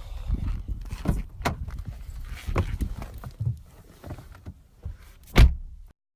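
Knocks, thumps and rustling from things being handled inside a parked car, with one loud thump about five and a half seconds in. The sound cuts off abruptly near the end.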